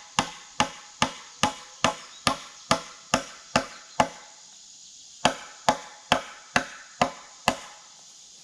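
Hammer driving nails through a board into a green oak post, with steady blows about twice a second and a brief ring after each. About ten blows, a pause of a second, then six more.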